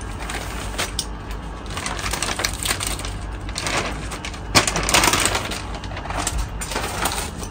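Handling noise from unpacking speargun parts: light clicks and knocks with rustling of packaging, loudest about five seconds in.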